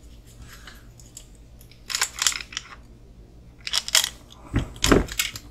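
Small RC kit parts being handled on a workbench: three short clusters of clicks and clatter, the last ending in a dull knock.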